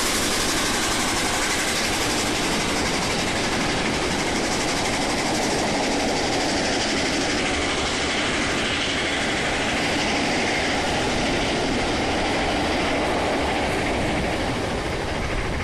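Passenger coaches of a steam-hauled train rolling past directly below, a steady rumble and clatter of wheels on the rails that eases a little near the end as the last coaches go by.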